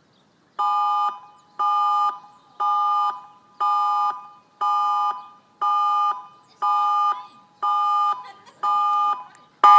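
Tsunami warning siren sounding a test alert: a chord of several steady tones pulsing on and off about once a second, starting about half a second in.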